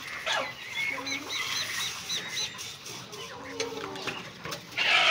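Chickens clucking and chirping around a feeder, with a run of short high chirps a second or two in. Grain feed rattles into a hanging feeder at the start, and a brief loud rustle comes near the end.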